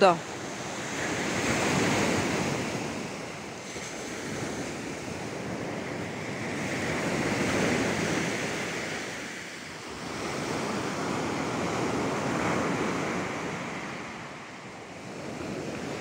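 Black Sea surf washing onto a sandy beach, the noise of the waves swelling and fading about every five seconds.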